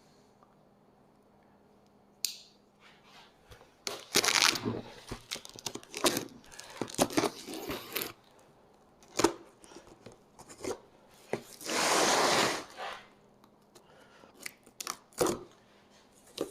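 Cardboard shipping box being opened by hand: tape tearing and cardboard rasping in several separate bursts, with clicks and knocks between, one steady rip lasting about a second.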